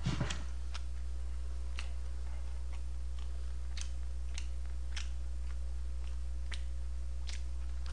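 Light taps of fingers on a smartphone touchscreen, sparse sharp clicks about one every half second to a second, over a steady low electrical hum.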